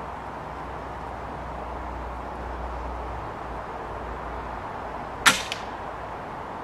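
A single shot from an Air Arms S310 .22 air rifle about five seconds in: one sharp crack with a short tail and a fainter second crack just after, over a steady background hiss.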